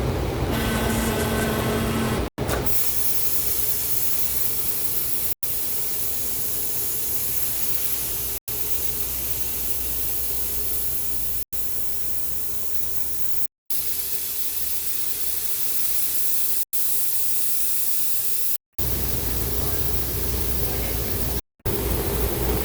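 Steady hissing noise from welding shop equipment in several short clips cut together, each ending abruptly.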